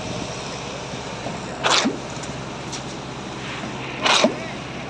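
Concrete pump running with a steady machine hum, broken twice by a short, sharp burst of noise, about two and a half seconds apart, in a regular rhythm of its pumping strokes.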